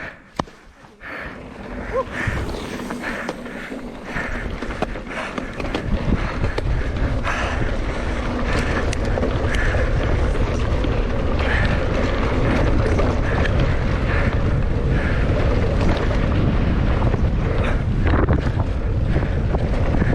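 Wind buffeting the camera microphone of a mountain biker riding a downhill trail, building over the first several seconds as speed picks up and then holding as a steady heavy rumble.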